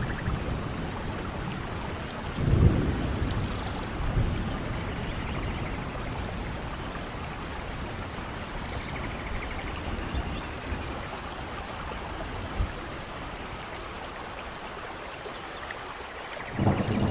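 Steady rain with rumbles of thunder: one about two and a half seconds in, and another starting near the end.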